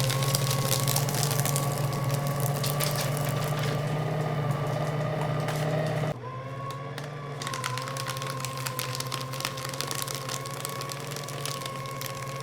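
Electric paper shredder running: its motor hums steadily while paper crackles through the cutters. About halfway through, the motor's load eases and the crackle stops for about a second, then more paper goes in and the shredding crackle returns, a little quieter.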